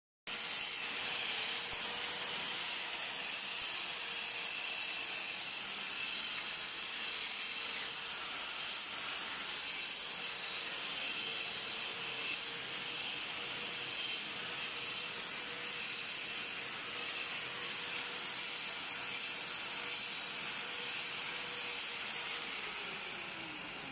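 Electric angle grinder running steadily with a high whine while grinding. Near the end it is switched off and its pitch falls as it spins down.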